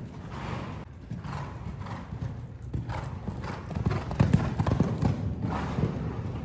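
A horse cantering on soft sand arena footing: a steady run of hoofbeats, with the horse's breaths puffing in time with its strides.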